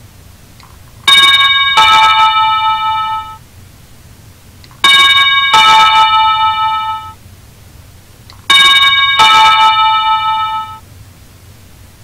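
Wireless doorbell chime sounding a two-note ding-dong three times, about three and a half seconds apart, rung from its wireless push button. Each pair of notes falls in pitch and fades out over about two seconds.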